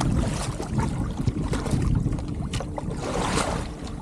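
Kayak drifting on the water: a low wind rumble on the microphone and water sloshing against the hull, with a few light knocks and clicks from gear being handled.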